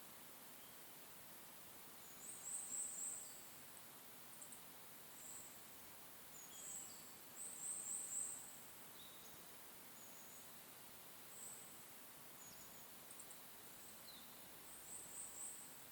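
Small birds calling: short, very high-pitched chirping trills, each under a second, repeated every few seconds, with a few fainter single notes between them, over a faint steady hiss.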